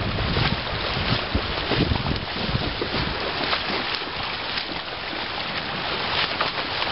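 Shallow river water rushing over rocks, with wind buffeting the microphone in uneven gusts.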